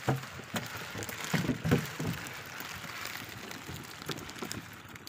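Fishing net being hauled aboard a wooden boat with fish on deck. Irregular knocks and thumps on the deck sound over a steady, rain-like patter of dripping water.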